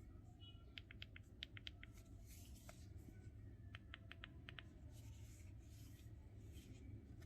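Near silence broken by two quick runs of faint, light clicks or taps, about a second in and again around the middle.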